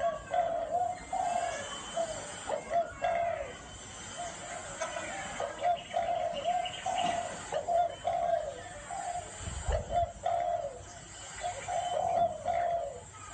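Spotted dove cooing over and over in short, low, mellow phrases, the gù style of call that keepers use for decoy doves. Thin higher chirps sound faintly behind the cooing.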